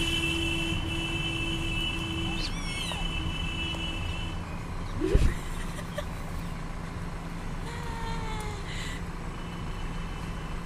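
Steady low rumble of a motor vehicle's engine, with a held tone for the first four seconds. A few short chirps and a falling whistled call come over it, and a brief louder sound stands out about five seconds in.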